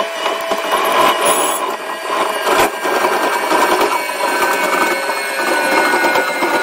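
Railway sleeper-handling excavator at work: machinery running with a steady whine and a loose clatter of knocks and scrapes, one sharper knock about two and a half seconds in.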